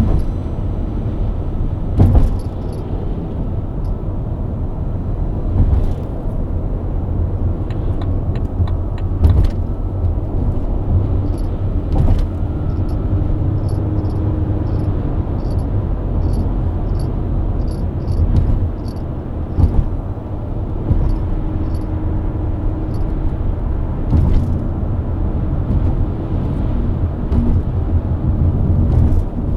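BMW E90 323i's inline-six running steadily at cruise with road rumble, broken by a few short sharp thumps. From about a third of the way in, a faint regular ticking comes in, roughly one and a half ticks a second.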